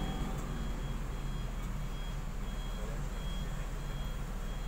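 Electronic warning beeper sounding a short, high beep over and over, a little under twice a second, like a vehicle's reversing alarm, over a low steady rumble of idling engines.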